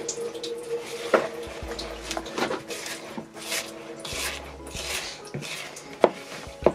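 Silicone spatula scraping thick cake batter down the sides of a plastic mixing bowl, in soft irregular strokes, with a few sharp knocks of the spatula against the bowl.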